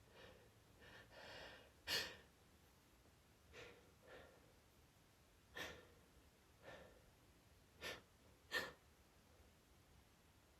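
A woman's hitching, gasping breaths as she tries to hold back a sneeze: a string of short, irregular catches of breath and false starts, the sharpest about two seconds in and again late on.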